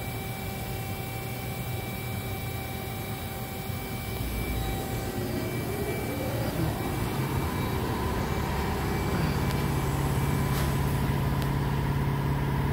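OKK HM6300S horizontal machining center running with a steady mechanical hum. About halfway through, a whine rises in pitch over a couple of seconds and then holds steady, and the machine runs louder.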